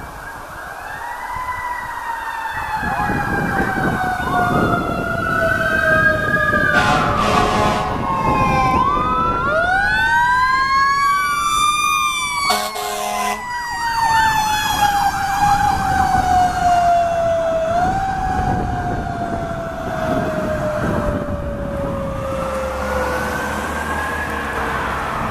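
Sirens of a fire engine (a 2010 Smeal pumper on a Spartan Sirius chassis) approaching and passing. A long siren tone falls slowly the whole way through, over it a rising and falling wail and then a fast yelp. Two horn blasts come about 7 and 13 seconds in.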